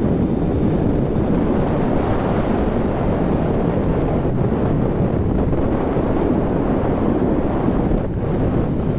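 Steady wind noise rushing over the camera microphone of a motorcycle on the move, with the bike's running and road noise buried in it.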